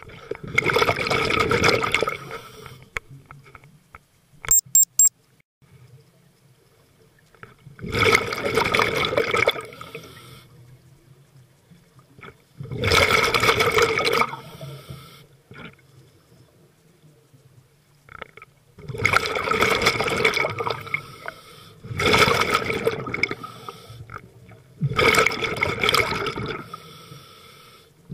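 Scuba diver's exhaled breath bubbling out of the regulator underwater, a rush of bubbles lasting a couple of seconds and coming six times at an even breathing rhythm. About four and a half seconds in there are three quick sharp clicks.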